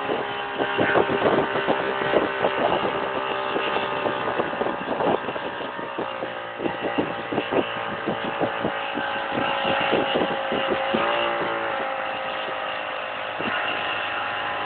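Motorboat running at speed: a steady engine note over rushing wake water, broken by frequent irregular splashes. The engine note bends briefly about eleven seconds in.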